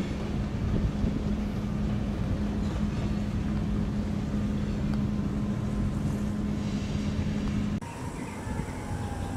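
Steady engine rumble with a constant hum and wind on the microphone, cut off abruptly near the end by a quieter stretch with a faint falling whine.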